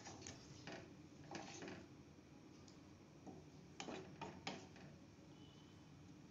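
Faint clicks and scrapes of a spatula stirring curry in a metal kadai, a few short knocks clustered around the first couple of seconds and again about four seconds in.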